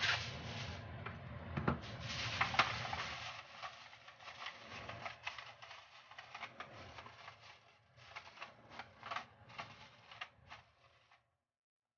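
Aluminium foil crinkling and crackling as it is pressed and folded by hand into a thin disposable aluminium pan: a dense run of small crackles, loudest in the first few seconds and softer after.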